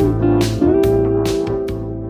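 Background music: keyboard and guitar over a steady bass, with a regular beat.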